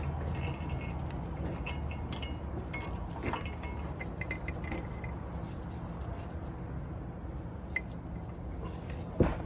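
Light metallic clinks and taps as a brake caliper and its hardware are handled, with a sharper knock near the end, over a steady low hum.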